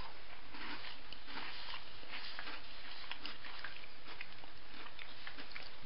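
Someone chewing a bite of a chocolate-coated Tim Tam biscuit: soft, irregular chewing sounds over a steady background hiss.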